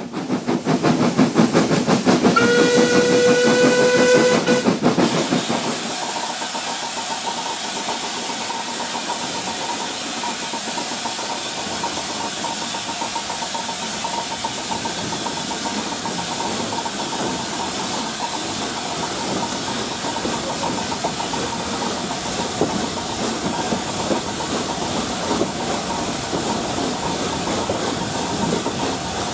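Steam locomotive working with fast, loud exhaust beats and a steam whistle sounding for about two seconds. About five seconds in this gives way to the steady hiss of steam and the running noise of a train in motion, heard from the carriage directly behind LNER A4 class 4464 Bittern.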